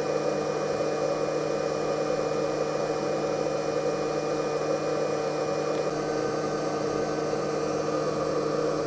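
Steady electrical hum with several held tones over a constant hiss, unchanging throughout; a faint higher tone joins about six seconds in.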